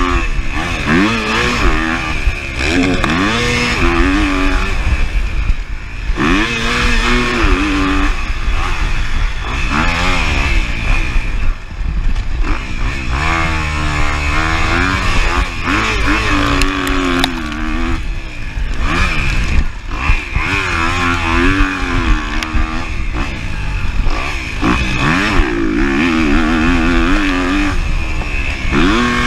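2023 Kawasaki KX250F's four-stroke single-cylinder engine at race pace. Its pitch climbs and drops again and again as the throttle is opened and chopped and the gears change, over a constant rush of wind and dirt noise.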